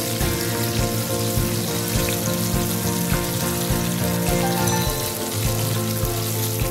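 Battered fish fillets sizzling as they fry in hot oil in a pan, under background music with a steady beat.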